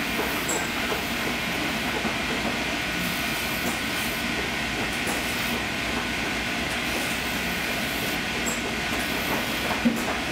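A shop machine running steadily, giving an even rushing hiss with a few faint ticks.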